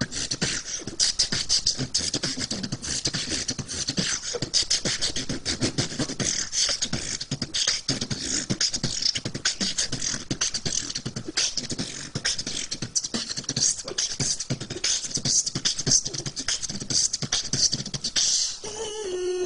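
Vocal beatboxing: a fast, dense run of mouth-made clicks, thumps and hissing hi-hat sounds. Near the end a sung note comes in and slides downward.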